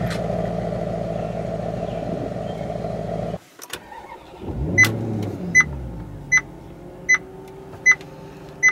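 Maserati GranTurismo MC's V8 running steadily, then stopping suddenly about three and a half seconds in. A second later it starts again with a quick flare of revs and settles to idle, while a dashboard warning chime beeps six times, evenly, a little under a second apart.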